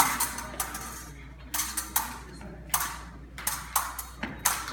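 Epee bout in action: a quick, irregular string of about nine sharp clacks from steel epee blades beating and tapping together, mixed with the fencers' footwork on the floor. The loudest clack comes right at the start.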